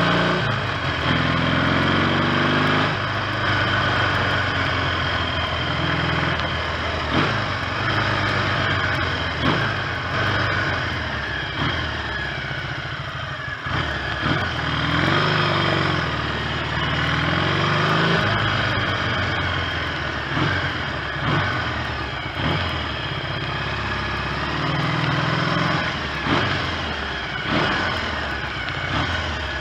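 1970 Triumph T100C's 500 cc parallel-twin engine under way on the road, its pitch rising and falling in steps as the bike accelerates and changes gear, with wind rushing over the microphone.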